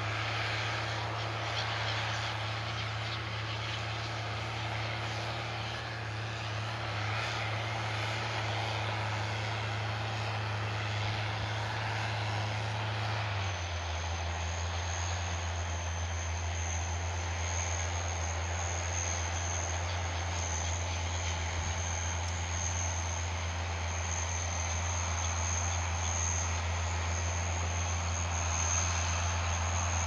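Diesel engines of a John Deere 6930 and a New Holland TS135 tractor running steadily under load while pulling ploughs. About halfway through the low engine note deepens and a steady high whine comes in.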